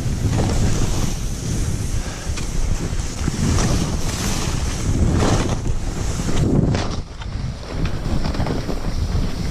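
Wind buffeting the microphone over the hiss and scrape of skis carving through snow on a fast downhill run, swelling in surges with the turns and dropping briefly about seven seconds in.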